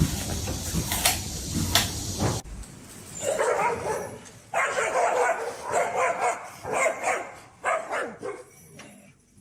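A dog vocalizing in about five repeated outbursts after an abrupt change a couple of seconds in. Before that there is a noisy stretch with a few sharp knocks.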